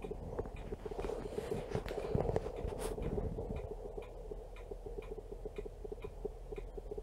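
Rapid, regular ticking of a camera's autofocus motor hunting for focus, several ticks a second throughout. A louder rustle between about one and three and a half seconds in.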